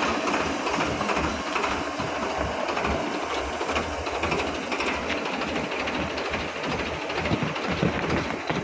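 Coconut-husk defibering machinery at a coir mill running with a dense, steady clatter, mixed with the engine of a tractor front loader feeding husks into its hopper.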